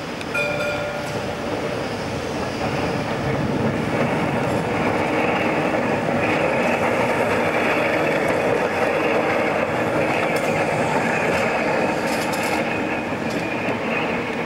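Vintage electric tram running past on street track, its sound growing louder as it draws level and easing off as it moves away. There is a brief ringing tone about half a second in.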